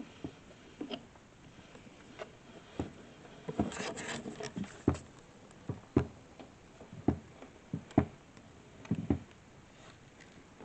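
Irregular clicks and knocks of wooden panels and hardware being handled during flat-pack assembly, with a short rustle about four seconds in.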